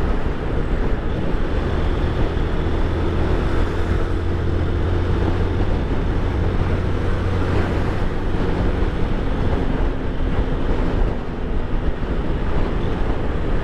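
Wind rushing over the microphone of a moving motorcycle, with the Honda CG 160 Titan's single-cylinder four-stroke engine running steadily underneath. The engine's low hum is strongest in the first half and then sinks into the wind noise.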